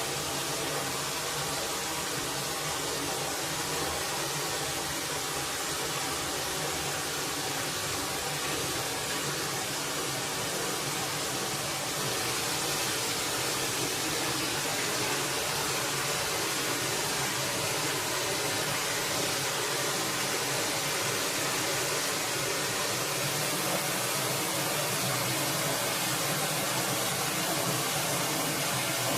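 Steady rushing of a forest stream's flowing water, growing slightly louder about twelve seconds in.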